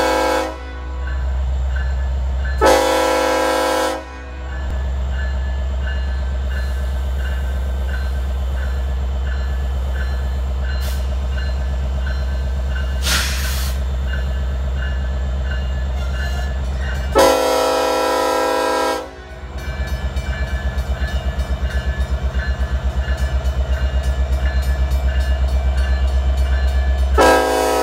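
Union Pacific diesel freight locomotive sounding its air horn in separate blasts over the steady low rumble of its engine: a short blast about three seconds in, a longer one around seventeen seconds, and another starting near the end. In the last several seconds, as the locomotive draws close, the rumble pulses in a quick even rhythm.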